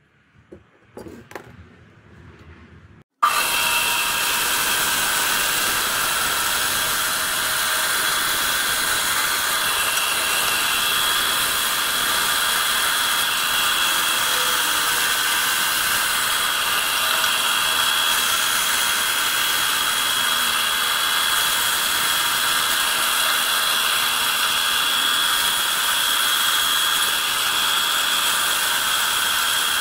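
Band saw running and cutting through a block of Douglas fir 4x4, a loud, steady whine with a few fixed tones. It starts suddenly about three seconds in, after a few faint handling taps.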